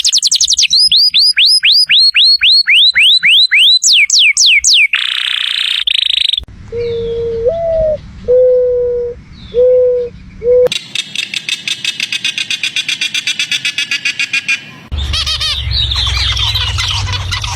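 A run of different animal calls, one after another: fast, repeated downward-sliding whistles at about four a second, a brief hiss, five low hooting notes, a rapid high trill, then squealing chatter.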